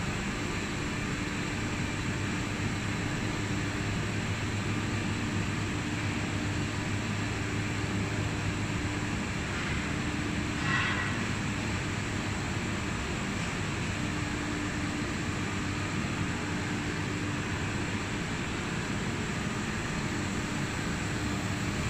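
Steady hum and whir of automated electronics production-line machinery and its fans, with a low steady drone. One brief sharper sound about halfway through.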